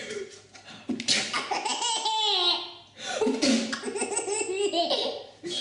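Baby laughing hard in two long fits, each lasting about two seconds.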